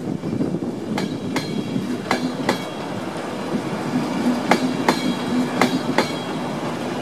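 Passenger train rolling slowly past through a station, its wheels clicking over rail joints in pairs about once a second, over a steady hum and rumble.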